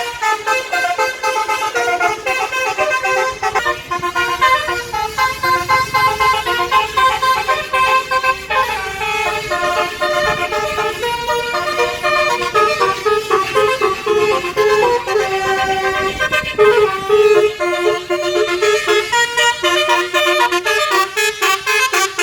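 Basuri tour bus's telolet horn, a multi-tone musical air horn, playing melodies: a long run of short notes stepping quickly up and down in pitch.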